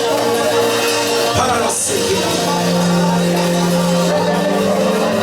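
Live church worship band music: sustained keyboard chords held under the pause, with one crash about a second and a half in.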